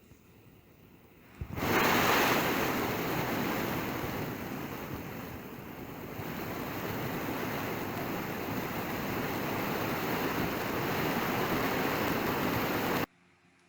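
Loud, steady rushing of a waterfall's falling water, starting suddenly about a second and a half in and cutting off abruptly near the end.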